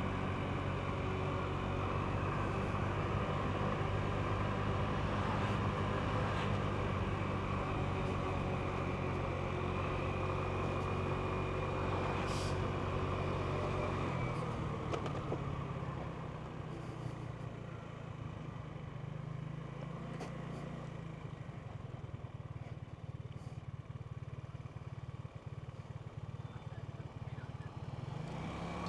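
Genuine Buddy 125 scooter's single-cylinder four-stroke engine running at a steady cruising speed with road and wind noise. About halfway through the engine drops to a lower, quieter note as the scooter slows, and it starts to pick up again at the very end.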